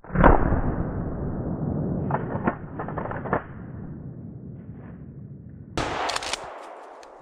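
A single shotgun shot right at the start, followed by a few seconds of brush rustling and handling noise, with a short burst of crackling about six seconds in.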